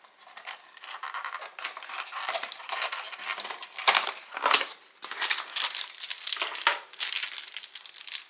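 Plastic packaging crinkling and rustling in irregular handfuls as accessories are pulled out of a motherboard box, with a couple of sharper crackles about halfway through.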